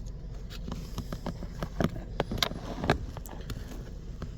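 Small handling noises of an opened iPhone 11 and its screen being moved on a workbench: a few irregular light clicks and taps with faint scraping.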